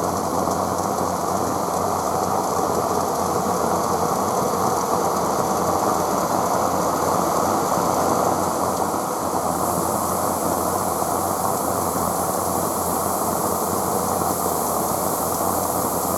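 Aster West Country Gauge 1 live steam locomotive in steam, giving a steady rushing hiss with no distinct beat. The high hiss grows brighter about ten seconds in.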